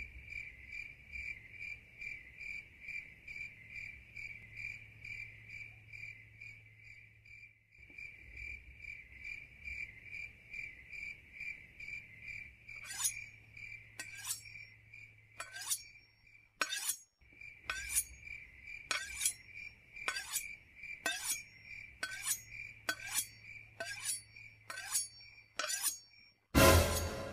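Crickets chirping in a steady pulsing chirr, as night ambience. From about halfway a series of sharp clinks comes roughly once a second, and near the end a loud clattering crash.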